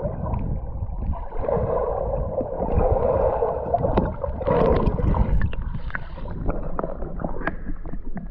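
Water sloshing and gurgling against a GoPro held under the surface of shallow lake water, heard muffled, with scattered small clicks and taps.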